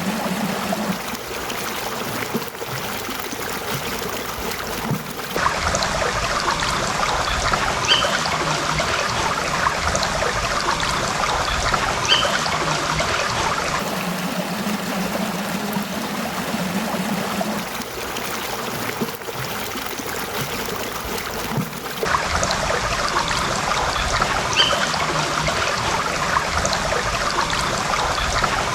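Small streams trickling and babbling. The sound switches abruptly between two different streams about every eight seconds.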